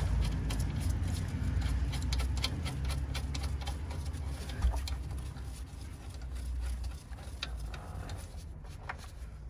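Scattered light clicks and taps of gloved hands fitting small screws back into a brake caliper, over a steady low rumble.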